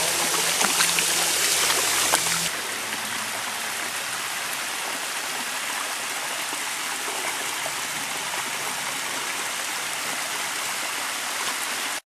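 Water of a small waterfall splashing and running over rock ledges, a steady rushing hiss. About two and a half seconds in it drops abruptly to a quieter, even rush.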